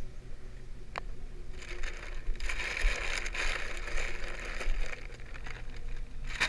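Paper sack of wood chunks rustling and scraping as it is handled to refill a wood-gas gasifier hopper, loudest from about two to five seconds in, with a sharp click about a second in. A steady low hum of the V10 engine idling on gasoline runs underneath.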